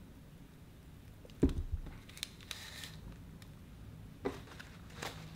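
Serrated bread knife sawing through a buttercream-covered sponge cake, with a sharp knock about a second and a half in and a second one a little past four seconds, and scratchy rasping strokes between.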